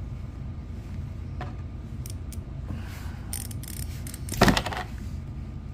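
Small metal clicks, then a brief metallic rattle about four and a half seconds in, as a SRAM XD driver body is worked and pulled off a rear bike hub by hand.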